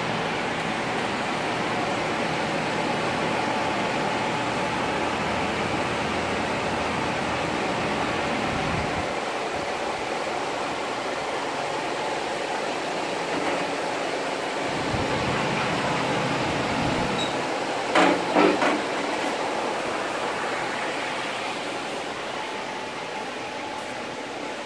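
Steady rushing background noise, with a quick cluster of sharp clacks about 18 seconds in as a notched sheet-metal trim strip is handled against a metal bending brake.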